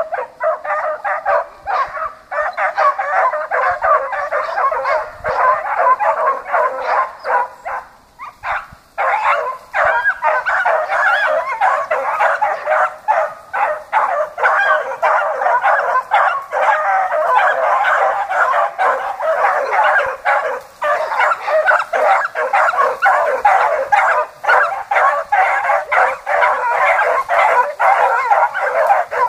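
A pack of gundogs barking and yelping out of sight, many voices overlapping in a continuous chorus, with a short lull about eight seconds in.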